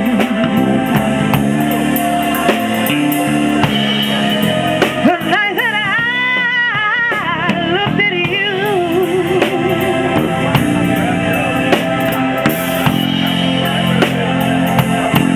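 Live soul band playing: a woman sings with vibrato, holding a long wavering note in the middle, over electric bass and a drum kit with steady cymbal and drum hits.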